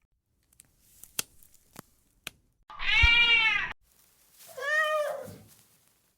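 A cat meowing twice: two drawn-out meows about a second each, the first louder than the second, after a few faint clicks.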